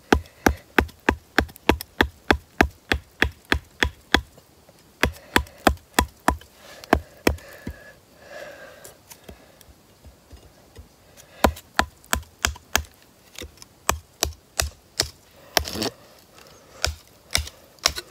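Small wooden-handled hatchet chopping a stick of dry wood in quick, even strikes, about three a second, with a lull of a few seconds in the middle before the chopping resumes.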